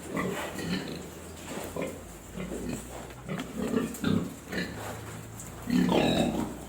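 Pigs grunting in a run of short grunts, with the loudest grunt near the end.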